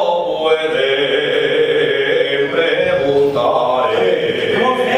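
A man singing solo and unaccompanied, drawing out long held notes that waver in pitch.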